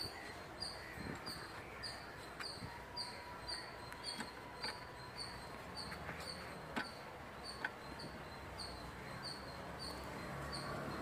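Short high-pitched chirps repeating steadily, about two and a half a second, with a few sharp metallic clicks as brake caliper parts and tools are handled, the loudest two a little past the middle.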